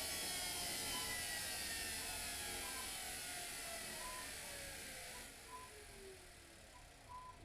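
Luxor WM 1042 washing machine winding down at the end of its spin cycle. The motor and drum whine falls steadily in pitch and fades, and the hiss cuts off about five seconds in.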